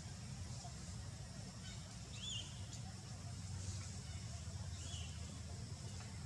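Outdoor forest ambience: a steady low rumble with two short, high chirps about two and a half seconds apart.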